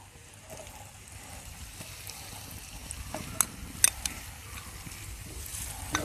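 Sliced shallots frying with chopped ginger, garlic and green chilli in hot coconut oil, a steady sizzle. Two sharp clicks come about three and a half seconds in.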